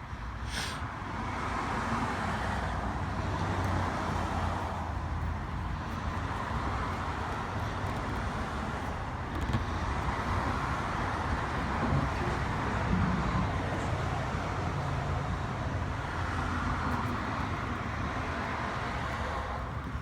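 Steady road traffic noise with no single clear source, swelling and fading slowly several times as cars pass.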